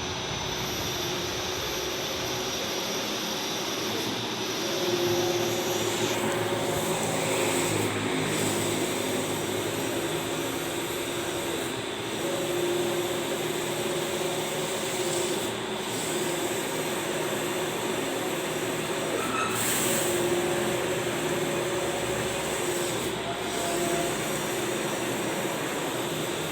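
Allwin 512i large-format printer running: a steady machine hum, with the print-head carriage motor's whine coming and going every three to four seconds as the carriage sweeps back and forth.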